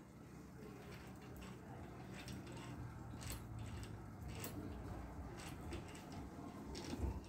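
Faint, scattered metallic clicks and taps of hand tools working on a bicycle's crankset, with a louder knock near the end, over a steady low hum.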